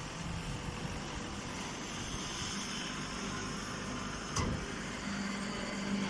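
Hydraulic grass silage baler and its feed conveyor running with a steady mechanical noise. A sharp click comes about four and a half seconds in, and a steady low hum joins about a second later.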